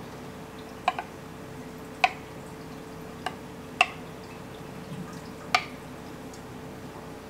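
Steamed milk poured from a stainless steel pitcher into a ceramic cup for latte art, heard as about half a dozen sharp plinks and drips scattered over a steady faint hum.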